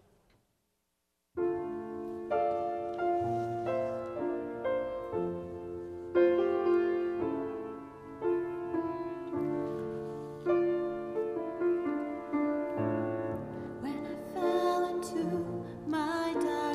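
A grand piano begins after a second or so of silence, playing a slow introduction of sustained chords. A woman's voice starts singing over it near the end.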